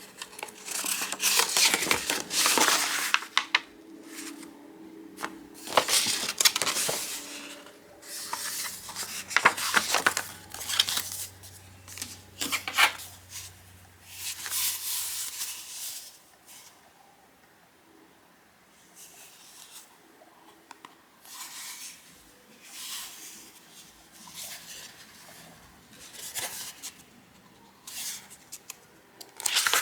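Dishes and cutlery clattering and scraping in irregular bursts, with a low hum for several seconds in the middle.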